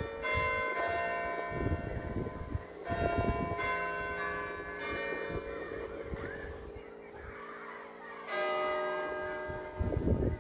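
Church tower bells of a Taylor ring of eight with a 24 cwt tenor, chiming the clock tune: a few single bell strikes, each ringing on and dying away. About eight seconds in, a single louder, deeper stroke sounds, the hour strike for one o'clock.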